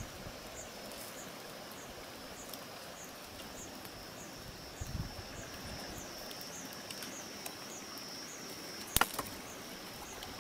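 An insect calling steadily in a high, thin tone that swells in a regular pulse about twice a second. A sharp double click sounds about nine seconds in.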